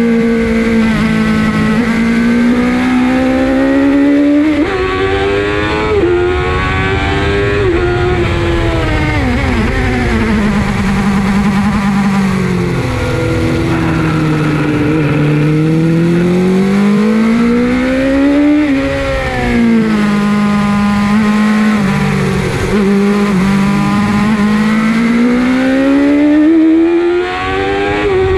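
Suzuki GSX-R 750 SRAD inline-four engine at full throttle on track, revs climbing through the gears with a short drop at each upshift, then falling away as it slows, several times over. Wind rushes steadily over the microphone.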